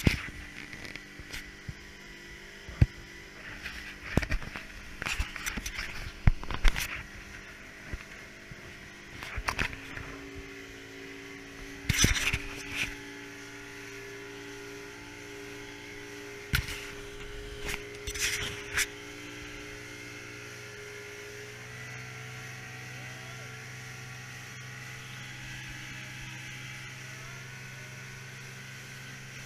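Boat motor running steadily, its pitch shifting about ten seconds in and again around twenty seconds, with sharp knocks and slaps scattered through the first twenty seconds.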